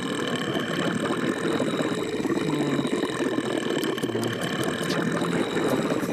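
A continuous rough, engine-like rumbling noise with faint steady high tones over it, cutting off suddenly near the end.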